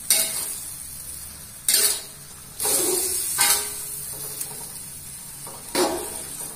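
Metal spatula scraping and knocking against a wok as stir-fried water spinach is tossed: about five strokes, over a steady sizzle from the hot pan.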